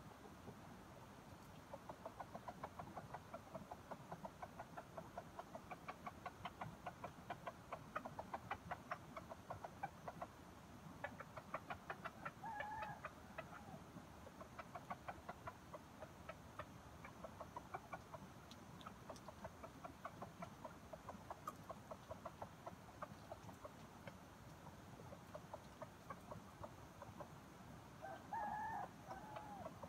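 Wild junglefowl clucking faintly in long runs of rapid, evenly spaced clucks, with a short higher call about twelve seconds in and another near the end.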